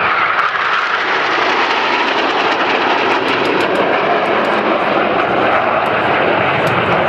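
A formation of Northrop F-5 jet fighters flying past, their turbojets making a loud, steady jet roar.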